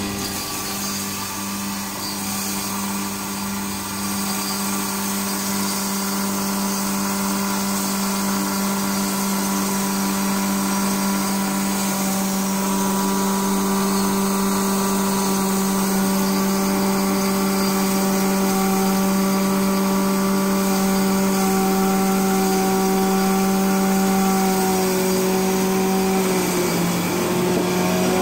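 Electric pulveriser grinder running steadily with a low hum and whine as green cardamom pods are fed in and ground. Its pitch dips briefly near the end, then recovers.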